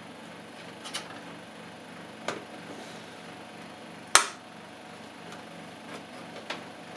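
Four sharp clicks of hands working inside a desktop computer case, the loudest a hard snap about four seconds in.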